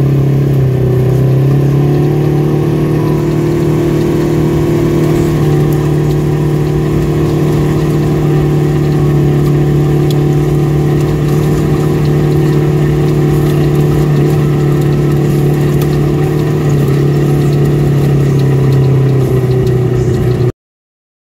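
Polaris RZR 1000 side-by-side's parallel-twin engine running steadily while driving, its pitch stepping up about a second in and dropping back near the end. The sound cuts off suddenly just before the end.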